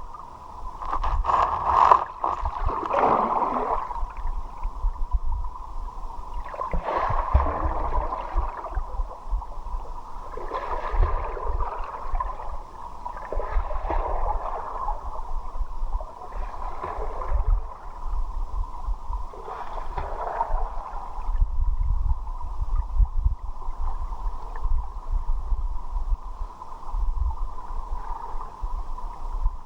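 Muffled river water at a swimmer's camera, gurgling and sloshing, swelling every three to four seconds over a constant low rumble.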